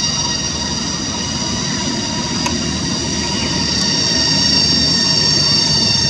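Cicadas droning steadily as a layered, high-pitched chorus at several pitches, over a low background rumble.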